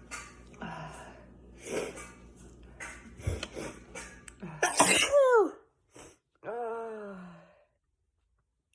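A person sneezing: a few short breaths build up over several seconds, then one loud sneeze about five seconds in, falling in pitch. A quieter voiced sound follows, then the sound cuts off.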